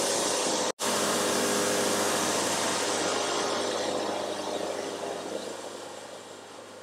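Wood-Mizer LT70 diesel bandsaw mill running and sawing through a log, a steady engine drone with the hiss of the band in the wood. The sound breaks off for an instant under a second in, then dies down gradually over the last few seconds.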